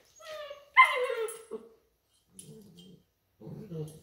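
Weimaraner puppies play-fighting. One gives a high whiny yelp about a second in that falls in pitch, then low growls come near the end.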